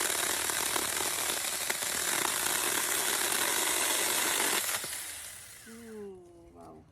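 Small cordless electric chainsaw running steadily, then stopping about four and a half seconds in, its sound dying away over the next second or two.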